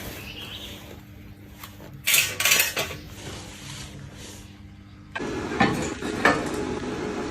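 Metal parts and tools clinking and knocking, loudest in a short cluster about two seconds in. A steady hum starts suddenly about five seconds in.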